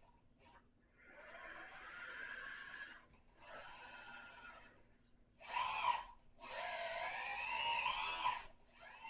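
Paladin 961 hydraulic RC excavator running in short spells as its joystick controls are worked, a whining motor sound whose pitch bends up and down with each movement. There are four spells, the longest of about two seconds near the end.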